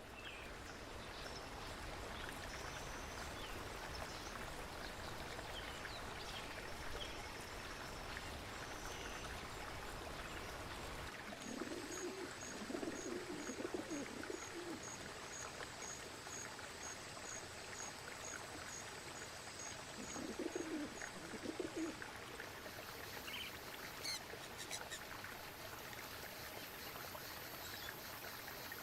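Jungle ambience: a steady rush of running water with scattered bird chirps. Twice, a low animal call lasts about two seconds, and through the middle a high ticking repeats about twice a second.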